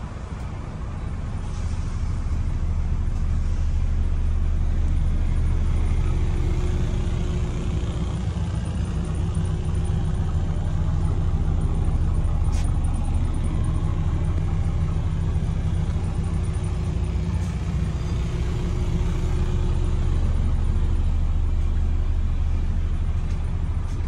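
Coach bus's diesel engine running at a steady idle, a low even hum heard inside the passenger cabin.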